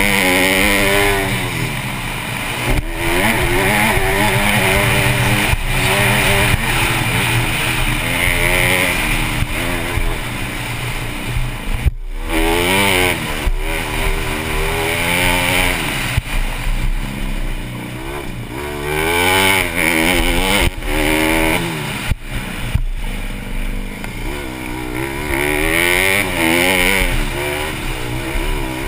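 Honda CRF150R's four-stroke single-cylinder engine revving up and falling off again and again as the rider accelerates, shifts and backs off, heard close from the rider's helmet camera.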